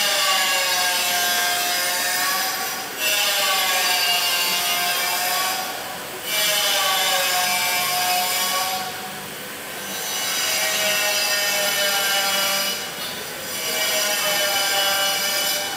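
Cicada calling from inside a shrub: a loud, shrill squealing buzz that comes in phrases of two to three seconds, each bending slightly in pitch, with short dips between them.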